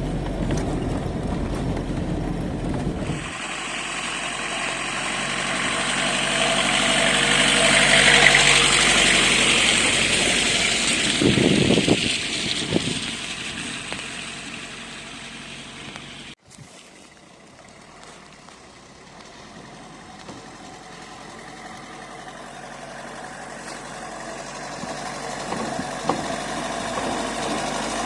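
A vehicle driving on a rough country road: engine and road noise that swell to a peak about eight seconds in and then fade. There is a sudden break about sixteen seconds in, after which a quieter engine runs steadily.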